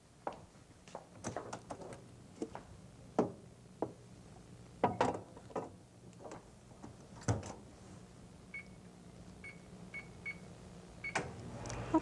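Clicks and knocks as a covered plastic vegetable steamer is set into a microwave oven and the door is shut, then five short high beeps from the microwave's touch keypad as the cooking time is keyed in.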